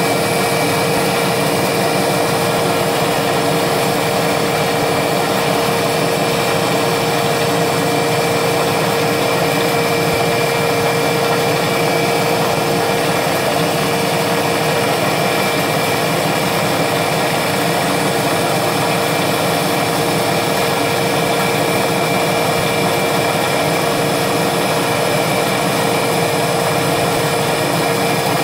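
CNC milling machine cutting thin aluminium plate with a small end mill: the spindle runs with a steady whirring cut and a constant high tone.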